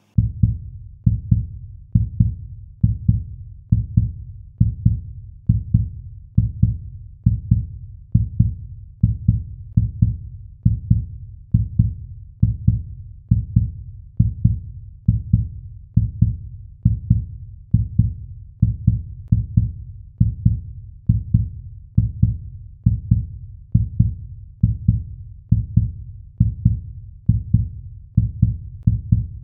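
Deep, heartbeat-like thumping pulse added as a backing track, repeating evenly about once a second.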